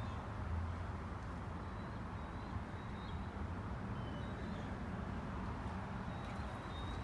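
Steady low rumble of distant road traffic, with faint short high chirps now and then.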